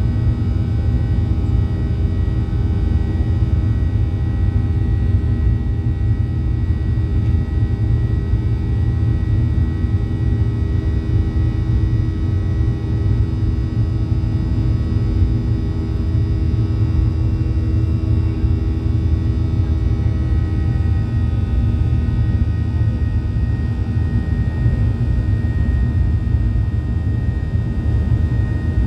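Boeing 737-800's CFM56 jet engines heard inside the cabin, a steady low drone with several faint, steady whining tones over it.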